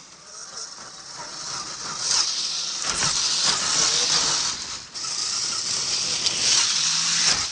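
Battery-electric RC crawler truck driving over trail dirt and gravel, its tyres and drivetrain making a steady noise with scattered small knocks. The noise grows louder about two seconds in and dips briefly just before the five-second mark.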